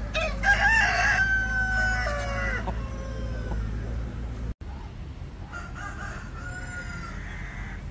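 A rooster crows once, loudly, for about two and a half seconds: a rising opening, then a long held note that drops away at the end. Past the middle a second rooster gives a fainter crow.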